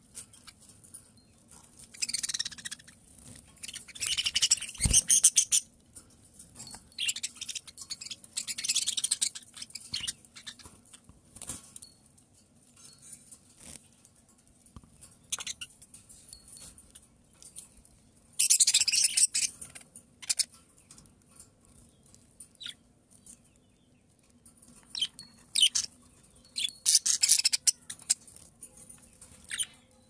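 Caged budgerigars chattering and warbling in bursts of rapid, high-pitched twittering every few seconds. A single sharp knock sounds about five seconds in.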